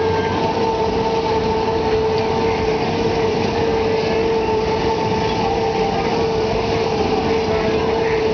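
Sidewinder fairground ride running, its drive machinery giving a loud, steady drone with one constant high whine under the rush of the swinging cars.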